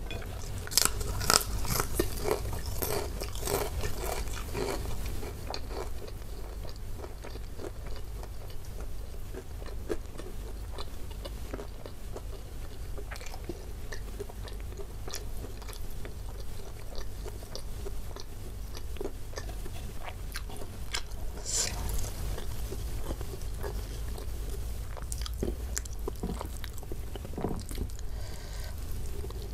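Close-miked eating: a fried cracker bitten and crunched, with sharp crackling crunches in the first few seconds and again about two-thirds of the way through, and softer chewing of rice and rendang beef between.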